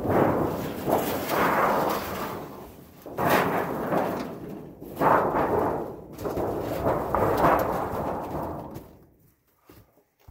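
A large galvanized steel sheet being handled and stood against a log wall, flexing and rumbling in several loud swells, each starting suddenly and dying away over a second or two.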